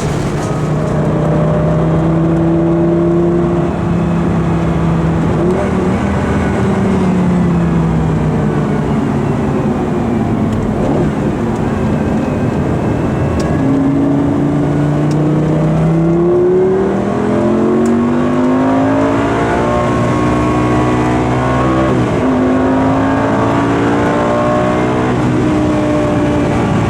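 Lamborghini Gallardo V10 engine under way: its pitch holds, eases down, then climbs in two pulls, each ending in a sudden drop in pitch at a gear change.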